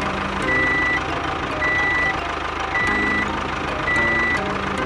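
Truck reversing alarm beeping steadily, about one beep a second, over the low sound of the truck's engine running.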